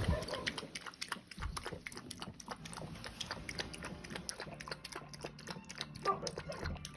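Puppy eating from a bowl: a quick, irregular run of small wet clicks from its mouth, chewing and lapping at food and milk.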